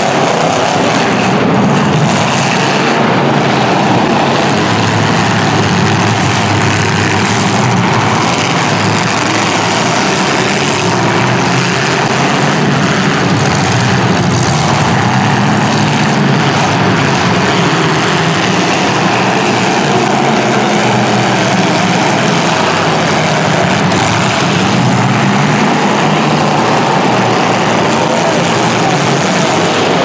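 Engines of several demolition derby cars running hard together, a loud, continuous mechanical din that stays at an even level throughout.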